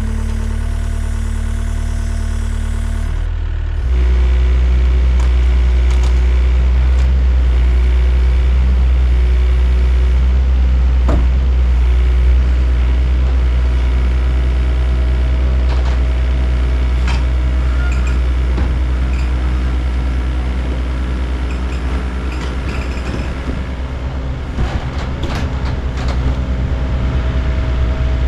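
Diesel engines of two compact track loaders, an IHI CL35 and a Takeuchi, running steadily under load as they carry a small garage. The engine sound steps up about four seconds in, and a few sharp clicks and creaks come through.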